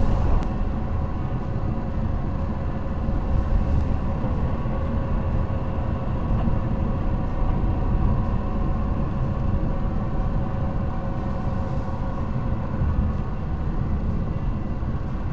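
Car engine and road noise heard from inside the cabin while driving: a steady low rumble with a faint engine hum.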